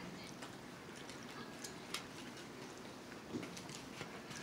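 Faint eating sounds: metal forks tapping and scraping on plates, a few small clicks over a low hiss.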